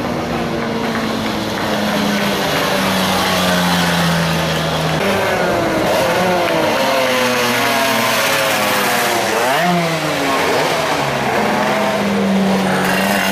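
Several MiniGP racing minibikes, high-revving small engines rising and falling in pitch as they accelerate, shift and brake. One passes close about ten seconds in, its note rising and then dropping sharply.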